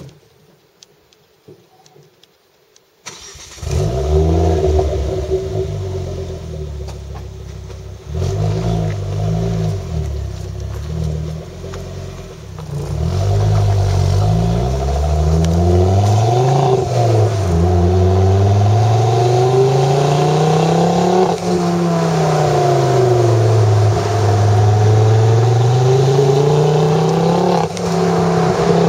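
Ford Focus RS engine with a Milltek aftermarket exhaust starting up suddenly about three seconds in and running at idle with small revs. It then pulls away, and the engine note climbs and falls again and again as the car accelerates and eases off.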